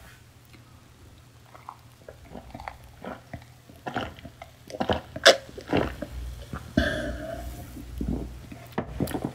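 A man drinking beer from a glass: a run of loud gulping swallows starting about four seconds in, after a few quieter small clicks.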